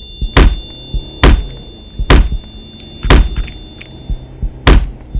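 Five heavy thuds of blows being struck, roughly one a second with a longer gap before the last, each a sharp hit with a deep boom. A faint steady high tone runs underneath.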